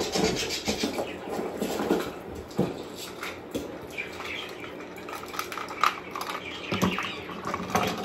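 Irregular rustling, rubbing and light clicks of a plastic bird foraging toy being handled and unpacked.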